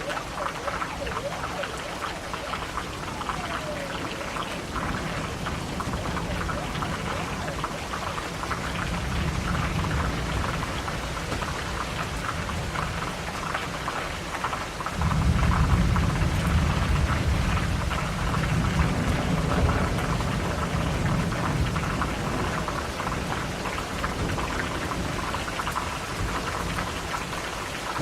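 Steady rain with rolling thunder. A low rumble builds around a third of the way in, and a louder thunderclap breaks suddenly about halfway through and slowly rumbles away.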